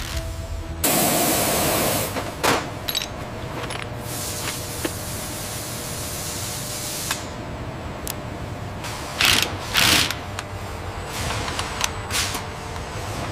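Factory tool noise: several bursts of hissing, one loud at about a second in, a longer one from about four to seven seconds, and two short ones near the ten-second mark, with scattered sharp clicks over a low steady hum.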